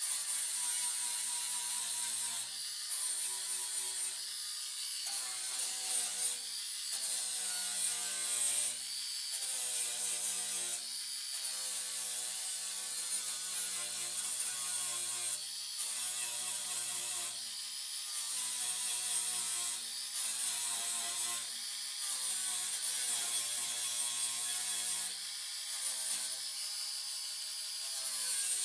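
MIG welder stitch-welding sheet-metal patch panels in short bursts of a second or two with brief pauses between, a crackling buzz while the arc is on.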